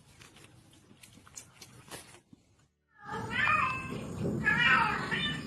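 Faint clicks and rustling, then after a short pause a cat meowing loudly, several drawn-out meows one after another from about three seconds in.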